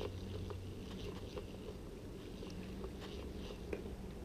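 A spinning reel being cranked slowly on a lure retrieve: a faint, low, steady running sound with a few small clicks.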